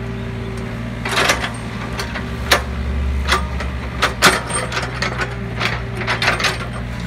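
Mini excavator's diesel engine running steadily while its bucket works the top of a soil pile. Several sharp clattering knocks come from rocks and earth being scraped and tumbling against the steel bucket, the loudest about four seconds in.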